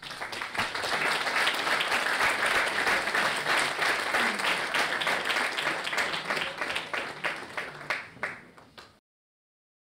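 Audience applauding, a dense patter of many hands clapping that thins out near the end and then cuts off suddenly.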